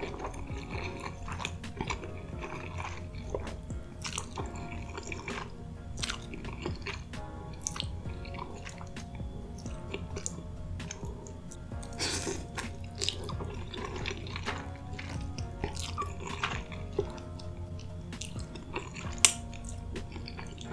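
Close-miked mukbang eating sounds: noodles slurped off a fork and chewed, with many short wet clicks and crackles and one louder sharp click near the end, over steady background music.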